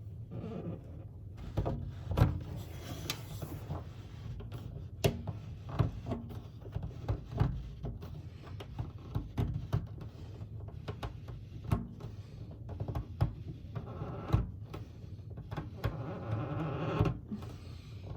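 Plastic shower drain nut being tightened by hand onto the drain body under a shower pan: irregular clicks, knocks and scraping of plastic parts being handled and turned.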